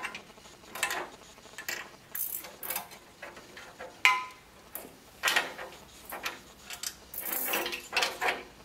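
Metal retaining springs being unhooked from the glass boiler of a laboratory water still: irregular clicks, scrapes and light clinks of metal against glass, with a sharper ringing clink about four seconds in.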